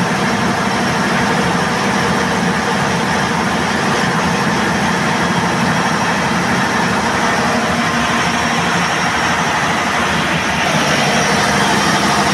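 Perkins 2306 six-cylinder diesel engine of an FG Wilson P400P3 generating set running steadily at its rated speed of about 1500 rpm. It gets slightly louder for the last second or two.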